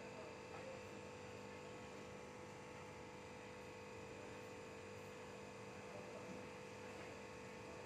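Quiet room tone with a faint, steady electrical hum made of several held tones; no distinct handling sounds.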